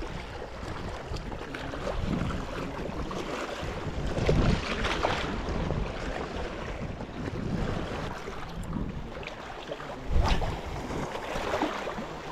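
Wind buffeting the microphone in irregular gusts over a steady rush of outdoor noise, with a single bump about ten seconds in.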